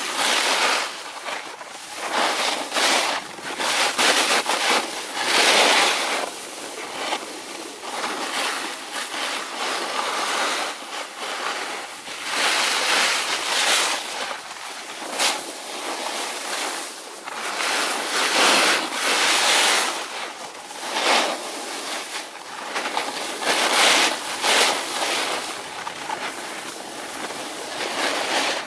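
Snowboard sliding and carving over snow: a rushing hiss that swells with each turn, every second or two, mixed with wind rushing over the microphone.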